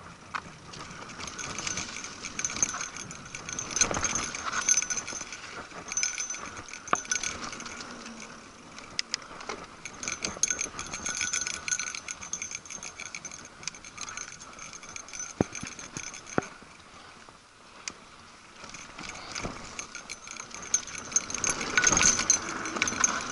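Mountain bike rattling along a bumpy dirt singletrack: a constant metallic jangle from the bike's loose parts, with scattered sharp knocks as the wheels hit bumps.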